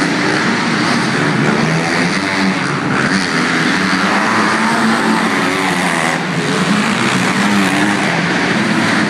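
Several 250-class motocross dirt bikes racing together, their engines revving up and down over one another without a break.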